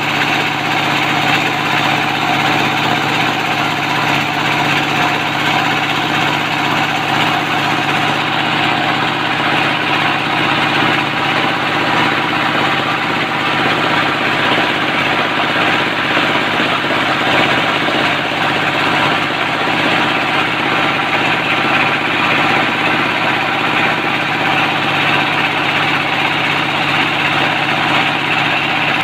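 ZS1115 single-cylinder horizontal diesel engine running steadily at a constant speed, with its even diesel knock.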